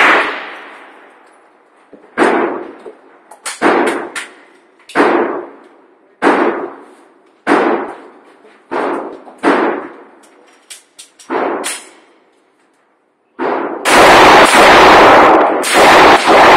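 Gunshots at an indoor range: about a dozen single shots, roughly a second apart, each ringing out in the echo. Near the end comes a loud, overloaded stretch of rapid gunfire as a Glock 22C pistol is fired.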